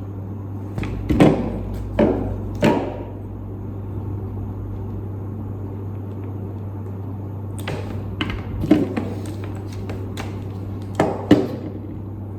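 Several sharp clunks and knocks in three groups, over a steady low hum.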